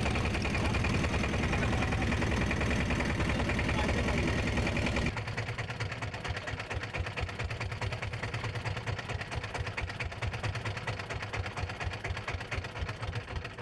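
Small fishing boat's engine running with rapid, even firing pulses. About five seconds in it is throttled back and runs on more quietly.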